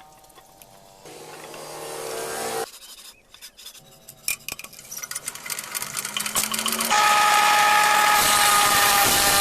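A power tool with an electric motor: it winds up and runs for a couple of seconds, stops suddenly, then comes back on loud and steady at about seven seconds, with clicks and rattles over the run.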